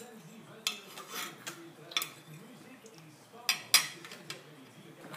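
About five sharp clicks and knocks like small hard objects clattering, the loudest two close together about three and a half seconds in.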